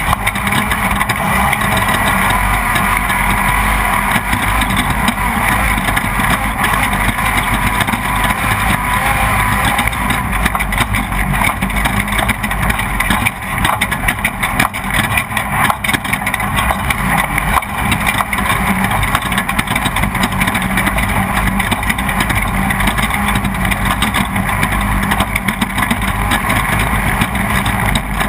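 Off-road race car's engine running hard at speed, heard on board over a steady loud rush of wind and road noise, with frequent short knocks and rattles.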